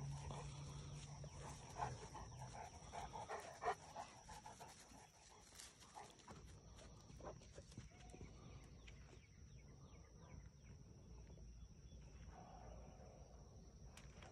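Faint panting of a Cane Corso dog, with scattered soft footsteps and rustles on grass and a thin, steady high tone in the background.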